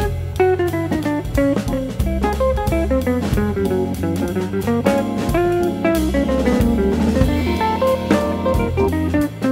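Instrumental background music: plucked guitar over bass and a drum kit, with a steady beat.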